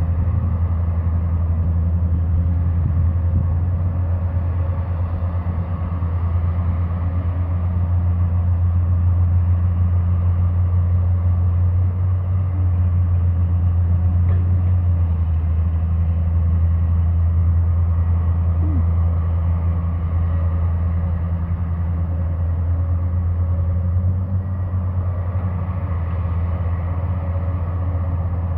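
Large engine running steadily, a low, even drone that holds at one pitch throughout.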